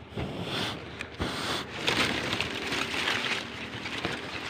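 Rustling and scraping of dry palm fronds being pushed aside and handled, in uneven swells, louder about two seconds in.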